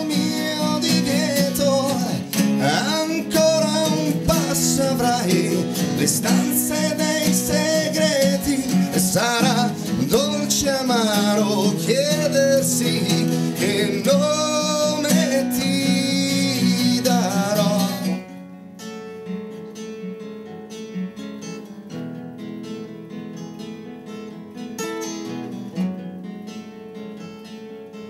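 Live acoustic band: a man singing with vibrato over two strummed acoustic guitars. About 18 seconds in the singing stops and the music drops to a much quieter passage of acoustic guitar alone.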